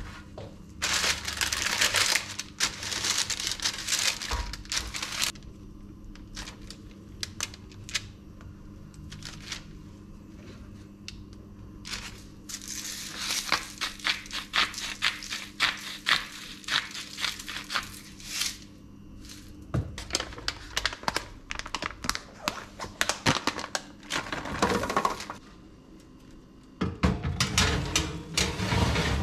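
Parchment paper crinkling as it is spread over a metal baking tray, with scattered taps and clicks of handling. About twelve seconds in comes a few seconds of a hand salt grinder grinding, and near the end the baking tray slides into the oven.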